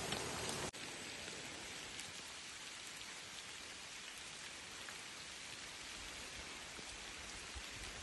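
Steady rain falling on leaves and foliage, an even hiss. It drops abruptly in level less than a second in, then carries on steadily.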